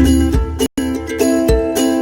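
Background music: a bright, chiming tune over a steady beat, broken by a very brief silent gap a little before halfway.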